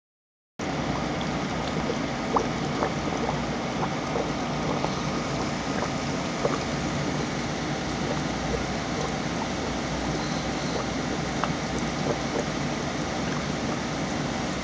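Aquarium filter running: a steady rush of moving water with faint scattered ticks, starting about half a second in.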